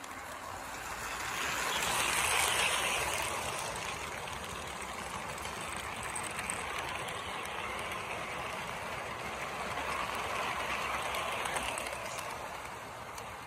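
1954 American Flyer model steam locomotive and its string of cars rolling past on the layout track: a steady clatter of wheels and motor. It is loudest about two seconds in as the engine goes by, and swells again near the end.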